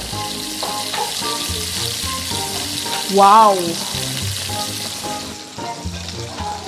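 Batter-coated whole chicken deep-frying in hot oil in a wok: loud, steady sizzling that thins out near the end, over light background music. About three seconds in, a short rising-and-falling voice-like exclamation is the loudest sound.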